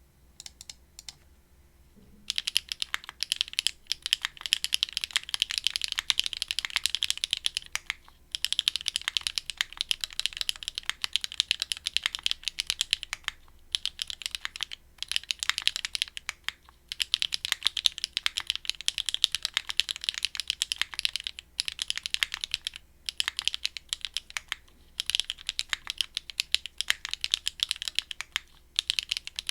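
Fast continuous typing on a Linworks Crescent custom mechanical keyboard with HMX Xinhai switches, a polycarbonate plate and Linworks keycaps: a dense patter of key clacks in bursts, with short pauses between runs. A few single keystrokes come first, and the steady typing starts about two seconds in.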